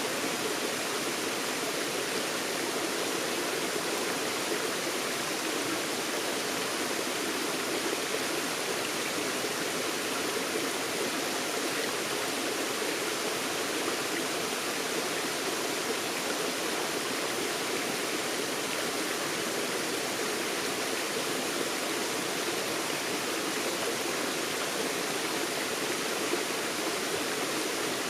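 Forest stream flowing over rocks: a steady, even rush of water that does not change.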